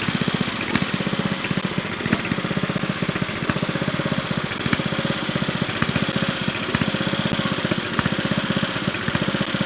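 Riding lawn mower's small engine running steadily, with a fast, even firing rhythm.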